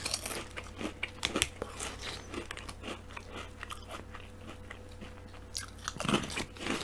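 A mouthful of potato crisps being crunched and chewed close to the microphone: irregular crisp crunches throughout, with a louder crunching bite about six seconds in.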